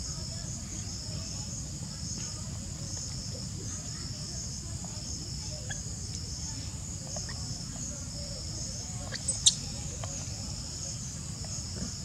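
A steady, high-pitched insect chorus, pulsing without a break, with one brief sharp squeak about nine and a half seconds in.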